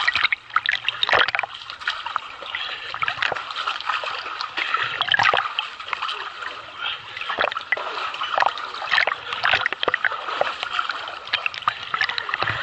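Water splashing from a swimmer's arm strokes right at the microphone held at the surface: a steady wash of water with irregular sharp splashes and drips.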